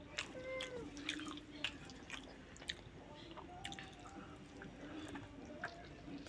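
Faint close-up eating sounds: wet chewing with irregular mouth clicks and smacks.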